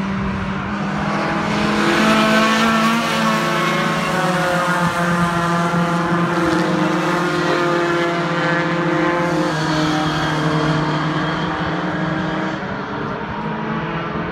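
A pack of racing pickup trucks passing at speed on a circuit, several engines running hard at once with their pitches shifting as they go by, loudest about two seconds in.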